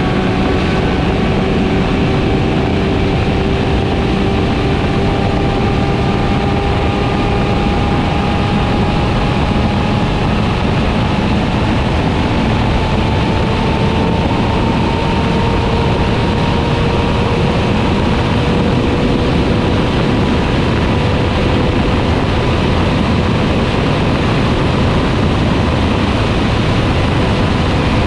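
Four-cylinder motorcycle engine running under way, its pitch climbing slowly and steadily as the revs build, over constant wind and road rush.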